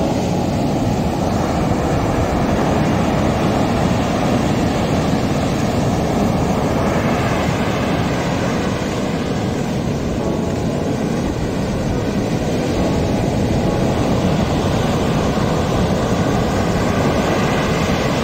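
Surf breaking on a beach, a steady roar of waves, with wind rumbling on the microphone.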